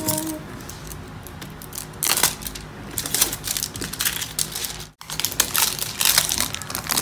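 Clear plastic wrap being peeled and crinkled off a giant plastic toy egg: a run of crackling and rustling, busiest from about two seconds in.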